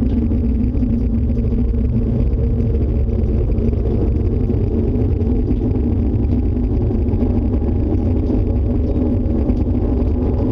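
Loud, steady low rumble with a constant hum in it and no let-up. It is the unexplained storm noise that the listeners fear is a tornado close by.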